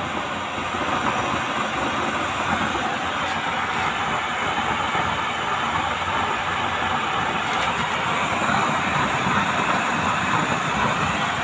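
Homemade used-oil burner running with its small electric blower forcing air into the burner pot: a steady rushing noise of fan and flame that swells up in the first second and then holds.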